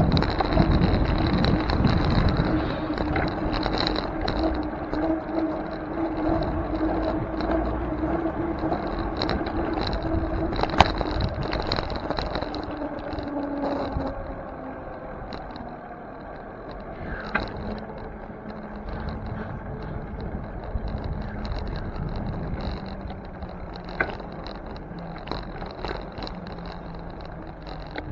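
City street traffic heard from a moving bicycle, under a steady low hum. It is louder for about the first half and then quieter, with a few sharp clicks.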